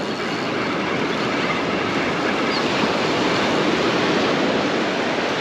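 Ocean surf washing onto the beach: a steady rushing noise that swells slightly in the first second and then holds.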